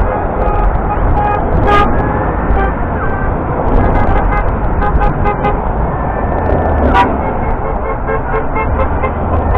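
A stream of passing cars and trucks honking their horns over a steady traffic rumble. Many horns toot in short repeated beeps, often several at once, with a couple of longer held honks.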